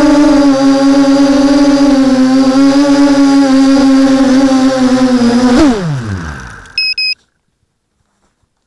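A quadcopter's Babybeast v2 brushless motors on 6-inch props give a steady buzzing whine, heard from an action camera mounted on the quad. About five and a half seconds in there is a click and the pitch drops quickly as the motors spin down on touchdown. Two short electronic beeps follow.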